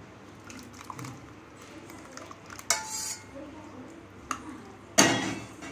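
Steel spoon clinking and scraping against a glass bowl as chopped fruit and thick custard are stirred together, with a few sharp clinks, the loudest about halfway through with a brief ring.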